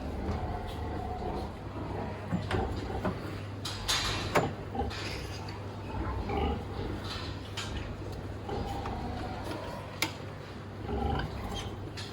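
Pigs grunting and squealing in short calls through a sow barn, with a few sharp metallic knocks, the strongest about four seconds in and a single click near the end, over a steady low hum.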